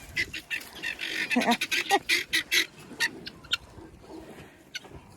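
Birds calling in a few short rising calls, among a quick run of sharp clicks and snaps that fades out after about three and a half seconds.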